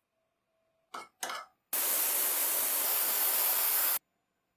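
Two brief knocks about a second in, then a loud, even hiss lasting about two seconds that cuts off suddenly.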